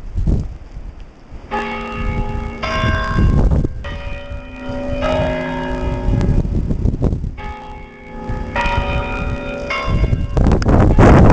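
Church bells ringing: a slow series of strikes on different notes, roughly one a second, each left ringing on. Wind buffets the microphone underneath, loudest near the end.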